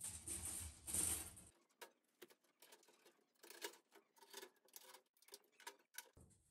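A brief hiss with a low hum for about the first second and a half, then scattered light clicks and taps.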